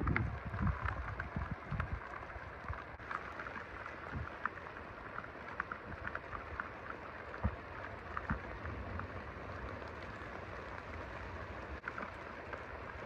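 Steady rain falling during a severe thunderstorm, a continuous hiss dotted with individual drop ticks, with a few low thumps in the first couple of seconds.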